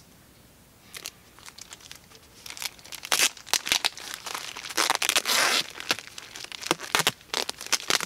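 Silver duct tape being pulled off the roll in short, irregular rasping strips and wrapped around a plastic bag, which crinkles as it is handled. It starts about a second in and gets busier and louder after about three seconds.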